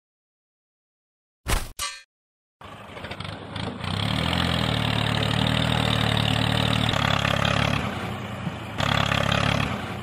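Two short clicks, then a tractor engine sound starts up and runs steadily while the miniature tractor drags a ripper through sand. It drops away briefly near the end and then picks up again.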